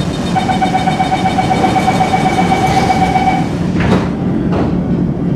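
Singapore MRT train's door-closing warning: a rapid beeping tone for about three seconds, then the sliding doors knock shut just before four seconds in, over the steady hum of the stationary train.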